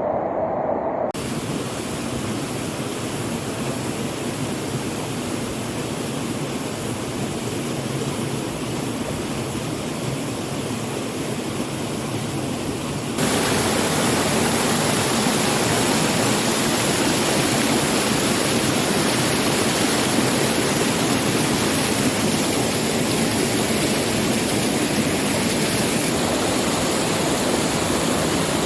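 Steady rush of falling water from a waterfall. It changes abruptly about a second in and again about 13 seconds in, becoming louder and hissier.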